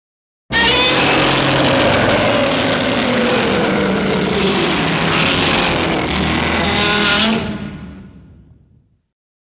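Godzilla roar sound effect from the 1984 film: one long, rough roar that starts suddenly about half a second in, holds for about seven seconds, then fades out.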